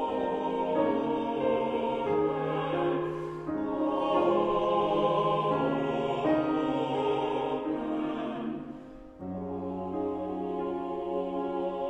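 Choir singing sustained chords that shift every second or so; the sound fades about nine seconds in, and a new chord with deeper low notes enters right after.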